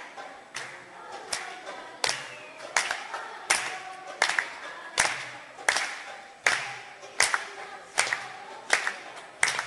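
Girls' choir singing a traditional South African song a cappella, over sharp claps on a steady beat about every three-quarters of a second.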